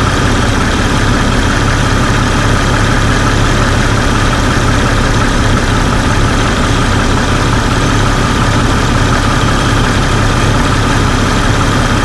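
2001 Jeep Grand Cherokee's 4.0-litre straight-six engine idling steadily.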